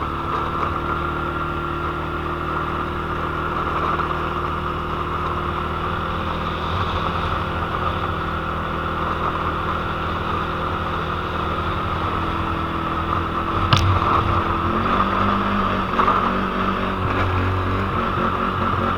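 Quad (ATV) engine running steadily while under way. A single sharp knock comes about two-thirds of the way through, and the engine note changes soon after.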